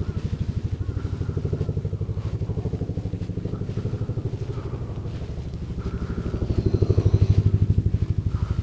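Helicopter flying overhead, its rotor beating in a rapid, even pulse that grows louder about six seconds in.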